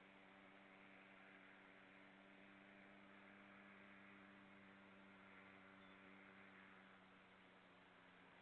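Faint, steady low hum made of several even tones over a soft hiss, which the uploader takes for a boat.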